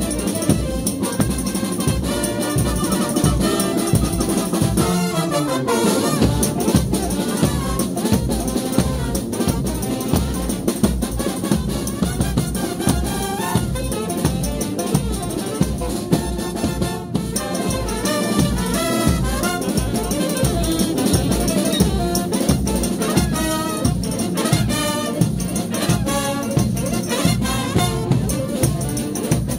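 Frevo brass band playing: trumpets and trombones over a fast, steady drum beat, with a downward pitch slide about five seconds in.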